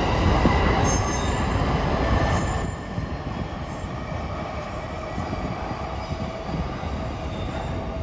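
Electric train moving along a platform track, wheels rumbling with a thin high squeal over them. About three seconds in the noise drops to a quieter, steady rumble.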